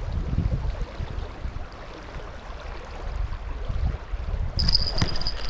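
Wind buffeting the microphone outdoors, a shifting low rumble over a faint rushing background. Near the end a steady high thin tone comes in and holds.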